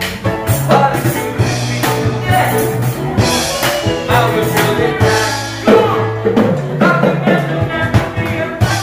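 Live band playing an upbeat song with drums, bass and singing.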